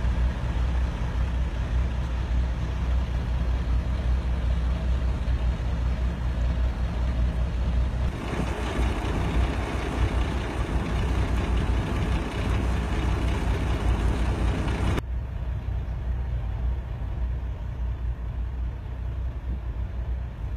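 Steady low rumble of a heavy truck engine idling, with outdoor noise over it. About two-thirds of the way through, the hiss above the rumble drops away suddenly.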